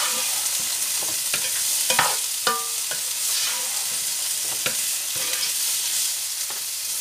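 Diced vegetables sizzling in oil in a deep non-stick pan while a spatula stirs them, scraping and knocking against the pan. A few sharper knocks stand out, one ringing a little about two and a half seconds in.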